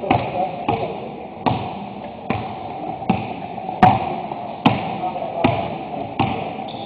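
Basketball dribbled on a hardwood gym floor, a steady bounce about every eight-tenths of a second, echoing in a large gym hall.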